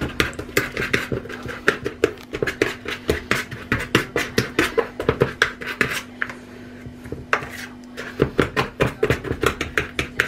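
A fork mashing stock cubes into oil in a plastic bowl: quick, rapid taps and scrapes against the bowl's base, about four a second, pausing briefly about six seconds in before starting again.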